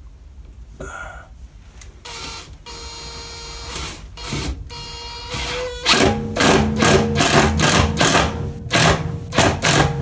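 Makita cordless impact driver driving a screw into a wooden joist. A short burst comes about a second in, then a steady whine from about two seconds. From about six seconds in it turns into a louder rapid hammering rattle as the screw bites and tightens.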